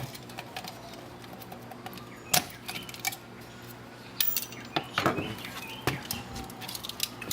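Screwdriver working the plastic clamps off a CRT TV deflection yoke: a handful of sharp clicks and metallic clinks spaced irregularly, the loudest about two and a half seconds in.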